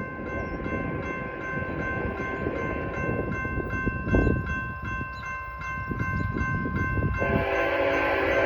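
Railroad crossing bell ringing steadily at an even beat, over a low rumble. About seven seconds in, the approaching train's locomotive horn starts up, several notes held together as one chord.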